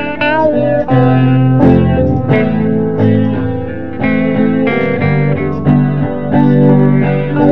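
Instrumental blues guitar jam with overdubbed guitar parts: plucked notes and chords layered over one another, with a note bent upward right at the start.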